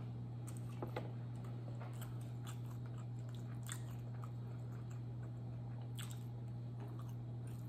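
Biting and chewing a piece of tandoori chicken close to the microphone, with many small scattered mouth clicks, over a steady low hum.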